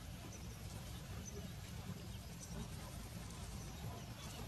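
Quiet outdoor ambience: a steady low rumble of wind on the microphone, with a few faint, short high chirps of small birds scattered through it.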